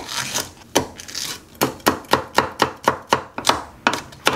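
Chef's knife finely chopping a green chili pepper on a wooden cutting board: a quick, even run of knife strikes on the board, speeding up to about four or five a second.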